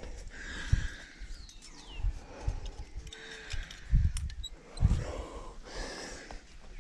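A climber breathing hard while moving on the rock, with rustling of clothing and gear and a few low bumps against the helmet-mounted microphone.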